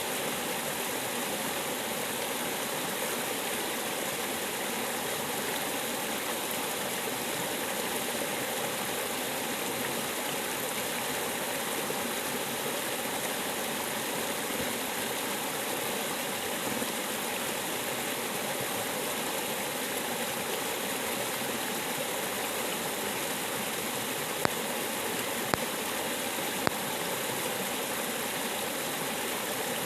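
River water flowing with a steady, even rush. Three sharp clicks about a second apart come near the end.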